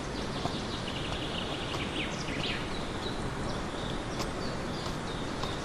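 Steady outdoor background with birds chirping, including a short trill and a couple of quick rising calls in the first half, plus a few faint knocks of a stick jabbing into loose forest soil.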